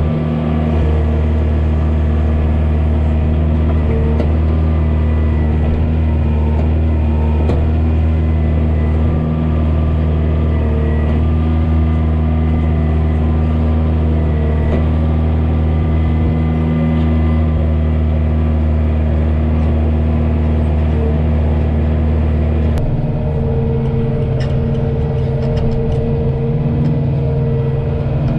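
Kioti DK40se tractor's diesel engine running steadily, heard from inside the cab. The tone of the engine sound shifts about five seconds before the end.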